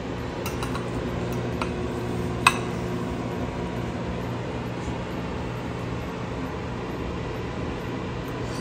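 Metal fork clinking against a ceramic plate while spaghetti is twirled, with one sharp clink about two and a half seconds in and a few faint ticks, over a steady low kitchen hum.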